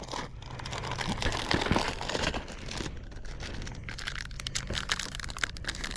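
Crinkling and rustling of a plastic bag of Zoom soft-plastic baits being handled while a trailer is taken out, an irregular run of small crackles.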